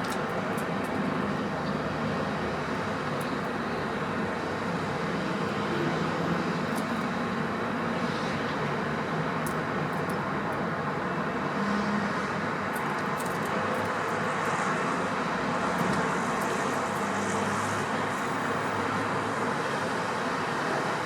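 Steady outdoor background noise like distant road traffic, an even rush with no break. Faint short high chirps or ticks show through, most of them in the second half.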